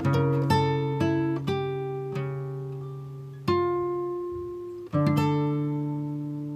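Background music played on a plucked string instrument: single notes and chords struck one after another, each ringing and fading.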